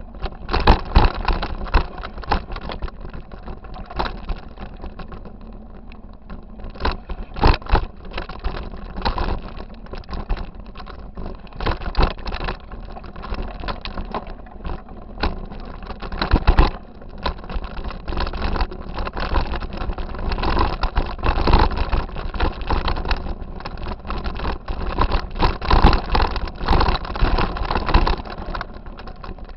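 Mountain bike riding over a rocky dirt trail, heard through a camera mounted on the handlebars: a steady low rumble broken by frequent sharp jolts and rattles as the bike hits rocks.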